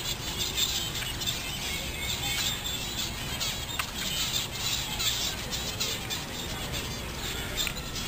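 Many small aviary birds chirping and calling, their short high calls overlapping in a busy, continuous chatter.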